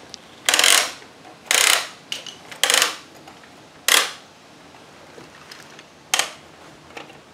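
Bruder toy crane's hand-cranked plastic cable winch being wound to hoist a bucket, clicking in five short bursts of a few tenths of a second each, spread over several seconds.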